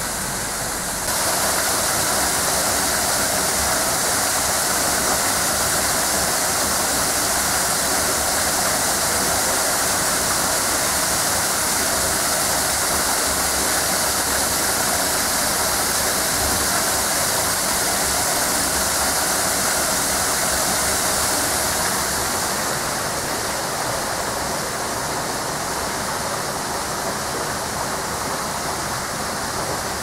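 Lichtenhain Waterfall rushing steadily down over rocks. The rush gets louder about a second in and eases slightly a little after twenty seconds.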